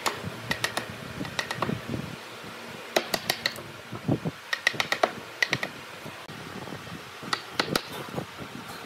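Wood chisel being struck to chop out a notch in a hardwood rail: quick bursts of three or four sharp taps, a short pause between bursts.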